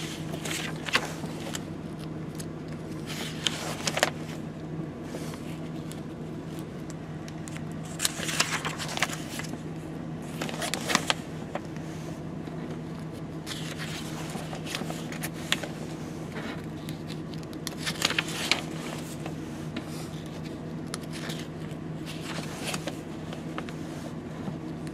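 Pages of a paper instruction manual being turned and handled, rustling in short bursts every few seconds, over a steady low hum.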